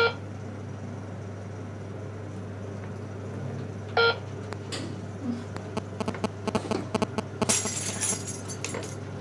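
Elevator fingerprint reader beeping as a finger is scanned: one short electronic beep at the start and another about four seconds in. A steady low hum runs underneath, and near the end there is a run of clicks and rustling.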